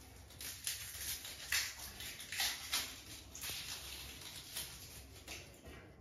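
Rose-ringed parakeet's claws and beak scratching and tapping on a plastic cage tray as it shuffles about, in quiet, irregular scrapes and taps.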